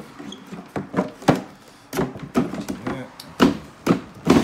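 Cutlery being slid back into a wooden canteen case: a string of irregular knocks and clinks, about ten in four seconds, the loudest near the end.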